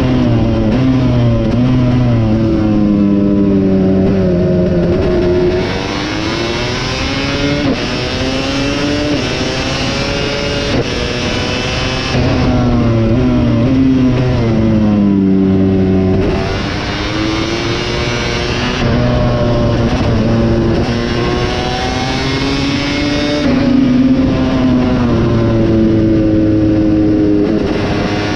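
KTM 250 SX single-cylinder two-stroke engine racing at full throttle, its pitch climbing through the gears and falling back again and again as it shifts and brakes for corners.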